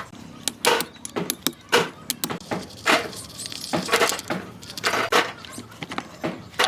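Irregular metallic clinks and knocks, two or three a second, some ringing briefly: metal parts and hand tools being handled and struck.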